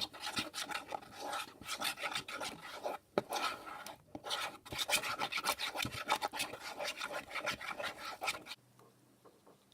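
A spoon stirring glitter slime in a bowl, scraping and rubbing in quick, irregular strokes as the glue and freshly added activator are mixed to form the slime. It stops about a second before the end.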